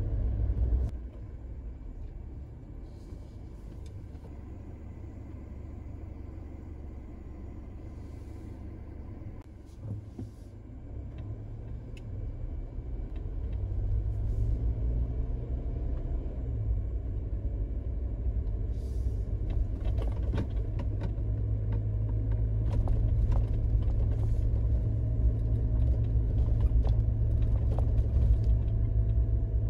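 Suzuki Jimny JB74 with its 1.5-litre four-cylinder engine, driving: a steady low rumble of engine and road that grows louder about halfway through. Scattered small ticks and knocks come in the second half.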